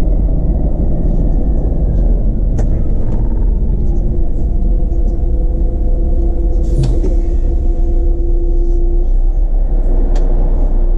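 City bus on the move: a steady low engine and road rumble, with a steady whine that sets in about four seconds in. A couple of sharp clicks or knocks are heard, the strongest near the middle.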